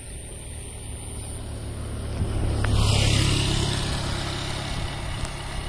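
Motor scooter passing close by and riding off along the lane. Its engine hum grows louder, peaks about three seconds in, then fades away.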